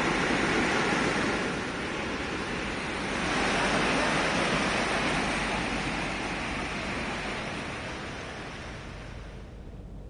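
Floodwater rushing and churning in a swollen river, a steady noise of turbulent water that fades away near the end.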